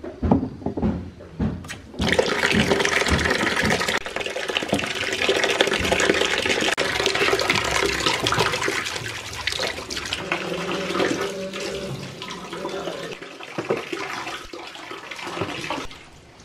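Water splashing and sloshing in a plastic basin as peeled potatoes and corn cobs are washed by hand. A steady rush of water starts about two seconds in and eases off near the end.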